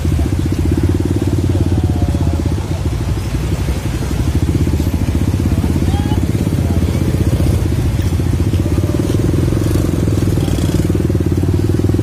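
Motorcycle engine running steadily close by while riding, a continuous low, rapid pulsing.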